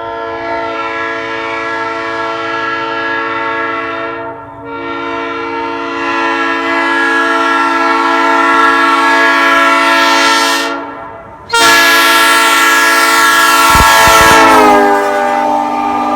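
Nathan Airchime old-cast P3 three-chime train horn blowing on 120 psi air: a long blast that dips briefly about four seconds in and trails off near eleven seconds, then a second, louder blast whose chord sags slightly in pitch near the end.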